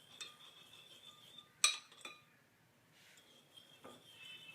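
A spoon clinking against a cup of milk and sugar, in a few light ticks and one sharp clink about one and a half seconds in.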